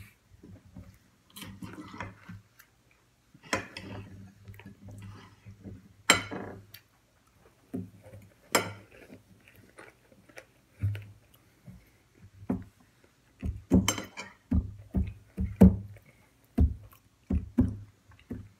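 Knife and fork clinking and scraping on a plate as food is cut, with irregular sharp clicks and knocks throughout and a low hum underneath.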